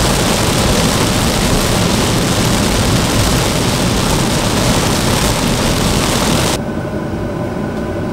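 Loud, steady rushing noise of a car driving through rain and water spray. It cuts off suddenly about six and a half seconds in, leaving a quieter steady car hum.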